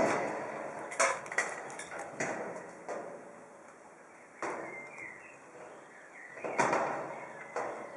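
Irregular sharp knocks and metallic clinks, about six over several seconds, from a climber's harness hardware and rope gear being handled.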